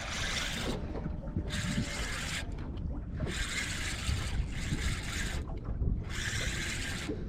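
Fishing reel being wound in to fight a hooked fish: five bursts of whirring hiss, each about a second long, with short pauses between, over a steady low rumble from the trolling boat.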